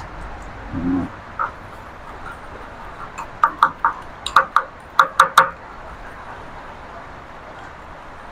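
Chopsticks stirring a dipping sauce in a small ceramic bowl, clinking against the bowl in a quick run of about nine sharp, slightly ringing taps over two seconds, after a dull knock about a second in. The stirring dissolves sugar and MSG into the salt, chili and kumquat sauce.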